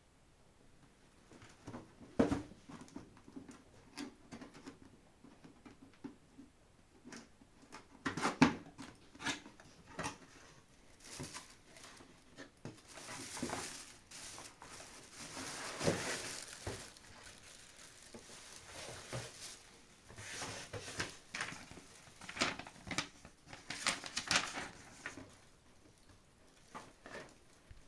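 Packaging of a fan heater being handled during unboxing: scattered taps, knocks and clicks with rustling, and a longer stretch of rustling about halfway through.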